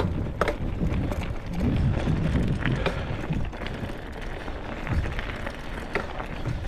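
Riding a bicycle on a dirt trail: a steady rumble of the tyres and wind on the microphone, with scattered small clicks and rattles from the bike.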